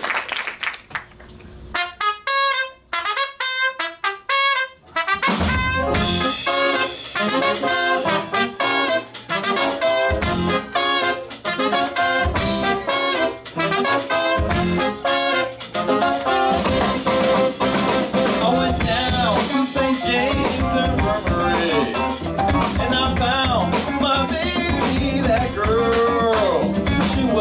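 Live band with a horn section starting a number: applause dies away, trumpets and trombones play a few short separate notes, then the full band with drums comes in about five seconds in.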